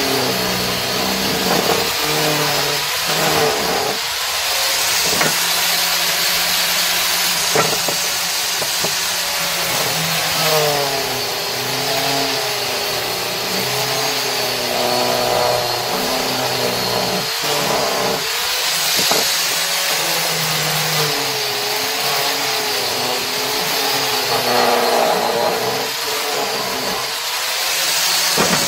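Electric power tool running while it cuts and shapes wood, a steady loud whine whose pitch wavers as the load changes.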